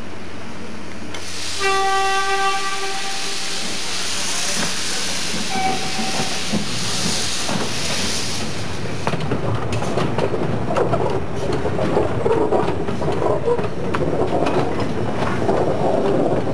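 Steam locomotive sounding a short whistle blast over a loud hiss of escaping steam, with a second brief toot a few seconds later. After the steam dies away the train rumbles and clatters along the rails.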